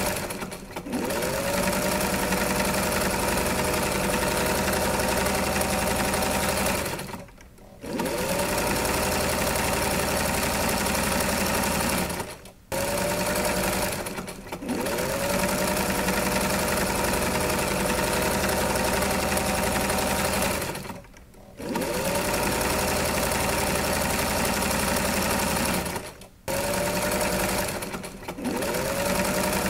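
A small machine running with a steady hum, cutting out abruptly every few seconds and starting again, each restart opening with a brief falling tone.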